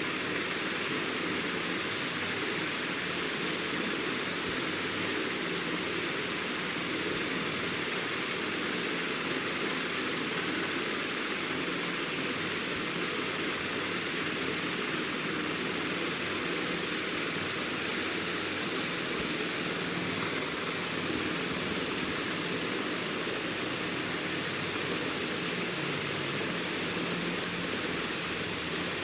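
A steady, even rushing noise that does not change, with no separate strokes or knocks in it.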